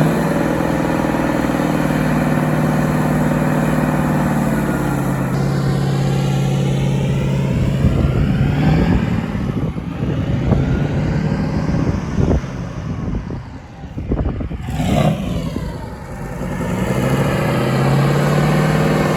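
Engine running steadily, its pitch dropping about five seconds in; it quietens briefly about two-thirds through, then picks up again with its pitch rising near the end.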